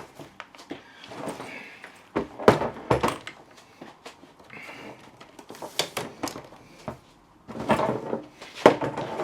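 Jammed telescopic suitcase handle being worked by hand: a run of sharp knocks, clicks and rattles as it is pushed and pulled, loudest about two to three seconds in and again near the end.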